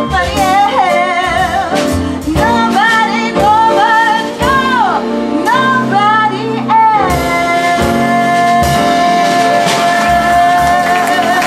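A woman singing a slow jazz-standard ballad over instrumental backing, with vibrato on the phrases, ending on one long held note from about seven seconds in.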